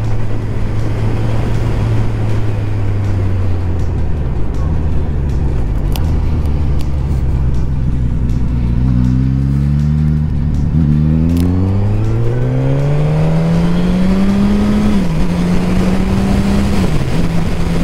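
Motorcycle engine heard from the bike on the move, over wind and road noise: it eases off and runs low for several seconds, then accelerates from about nine seconds in, rising in pitch with brief dips at the gear changes.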